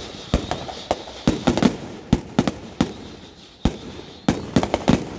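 Firecrackers going off in a rapid, irregular string, more than a dozen sharp bangs.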